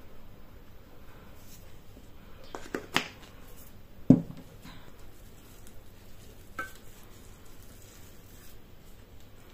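Kitchen utensils and a stainless steel mixing bowl being handled: a sharp click about three seconds in, a dull knock a second later (the loudest sound), and a short metallic clink with a brief ring about two seconds after that, with quiet between.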